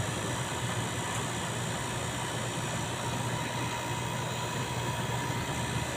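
Refrigeration condensing unit of a walk-in freezer running with a steady low hum and a faint thin high tone.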